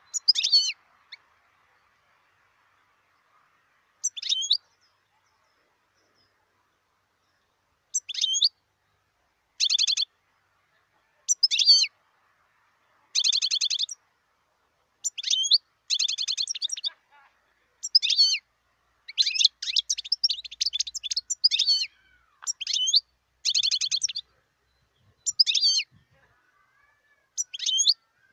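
European goldfinch singing: short phrases of twittering and buzzy trills with pauses between them, sparse at first and coming close together from about halfway on.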